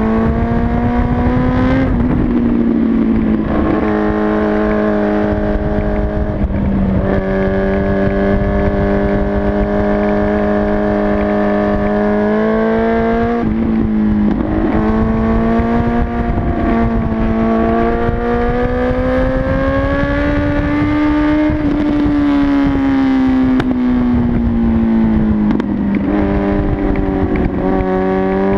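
Motorcycle engine heard from on the bike while riding, its pitch rising and falling with the throttle and breaking off briefly several times. Low wind rush on the microphone underneath.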